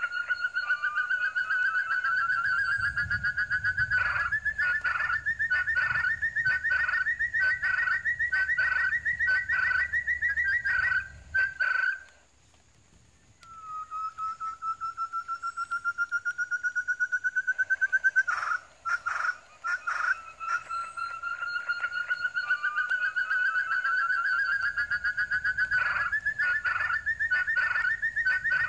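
Forest quail call: a long whistle that climbs slowly in pitch, broken into regular pulses. It cuts off about twelve seconds in and, after a second and a half of silence, begins again.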